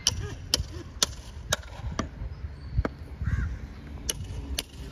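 Hammer striking while an ox's hoof is trimmed and shod: sharp, ringing taps about two a second, with a pause in the middle.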